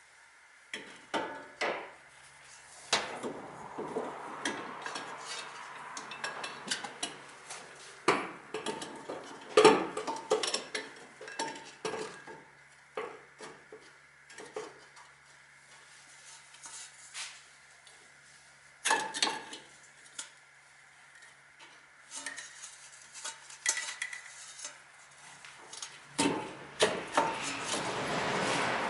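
Metal hand tools and parts clinking and clattering in irregular knocks and taps, some ringing briefly, with a denser run of noise near the end.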